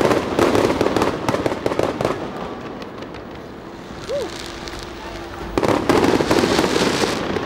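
Aerial fireworks going off in rapid multi-shot barrages of loud bangs and crackles, easing off about two seconds in and starting again in a dense run about five and a half seconds in.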